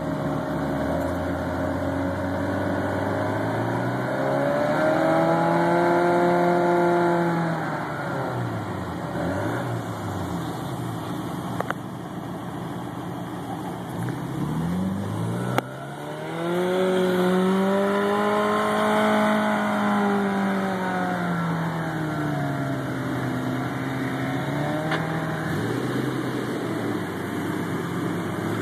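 Off-road 4x4 engine revving up and easing off in several long swells as it works through deep snow, with a couple of sharp knocks in between.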